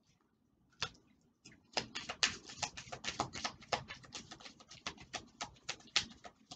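A deck of oracle cards being shuffled by hand: a single card click, then from about a second and a half in a quick run of card flicks and slaps, several a second.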